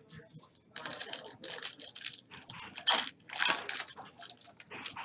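Foil wrapper of a football trading card pack being torn open and crinkled by hand: a run of irregular crackles, loudest about three seconds in.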